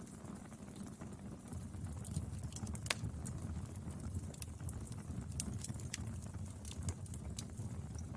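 Wood fire burning: a steady low rumble of flames with irregular crackles and pops from the burning wood, one sharper pop about three seconds in.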